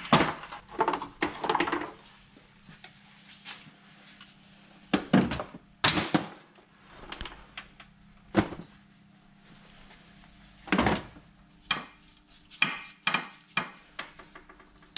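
Irregular knocks and metallic clinks of hand tools and car body parts being handled and fitted, with a quick run of clicks near the end.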